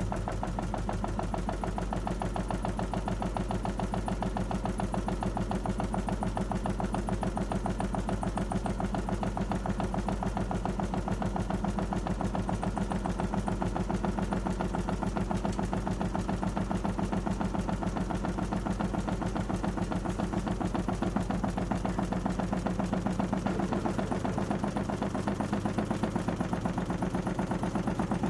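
Panasonic NA-147VB2 inverter washing machine running, its drum turning steadily with a fast, even rhythmic knocking over a constant motor hum; the hum shifts slightly in pitch near the end.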